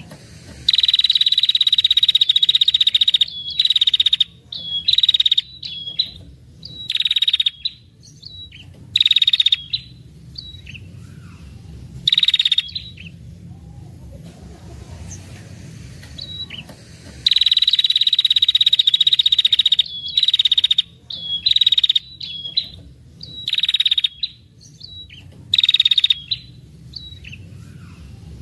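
Female ashy tailorbird giving long rattling trill calls: one harsh, buzzy trill of about two and a half seconds, then a string of shorter trills. The same sequence repeats about halfway through.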